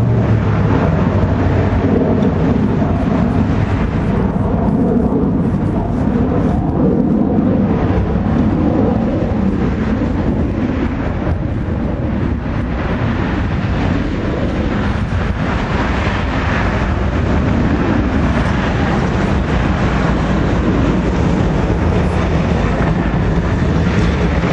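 Broken Whelen 2806 electronic warning siren sounding as a loud, rough, noisy drone instead of a clean rising and falling wail. The siren is faulty.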